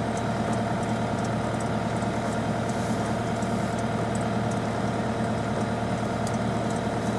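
Case skid steer loader's diesel engine running at a steady, low speed while it drives a hydraulic net-winding shaft turning slowly.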